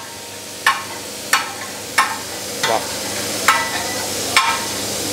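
Metal spatula knocking on a large iron tawa, about six sharp ringing taps roughly every two-thirds of a second, the 'tak tak' of chopping and stirring magaz. Under it, desi ghee and gravy sizzle steadily on the hot tawa.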